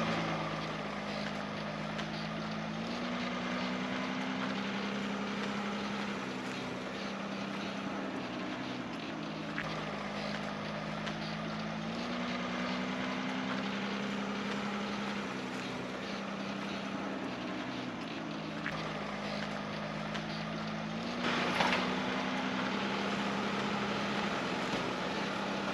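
A camera drone's propellers humming steadily, the pitch stepping up and down every few seconds as the motors adjust, with wind noise on the microphone.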